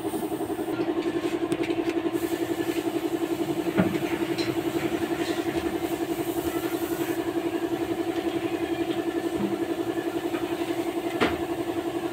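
An engine idling steadily, a fast even pulsing hum, with two sharp knocks: one about four seconds in and one near the end.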